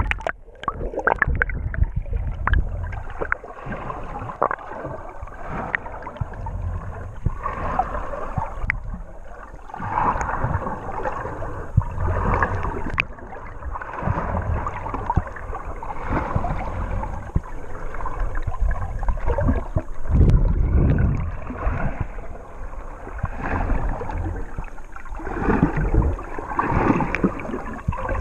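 Water heard through a camera dipped under the sea. The open-air hiss cuts out right at the start as it goes under. After that come muffled gurgling and churning water, with small clicks and bubbles and low surges from the swimmer's movements.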